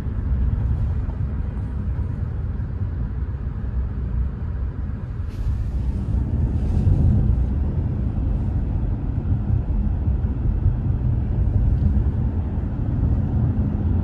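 Steady low rumble of a moving vehicle, with a couple of brief soft hisses about five and seven seconds in.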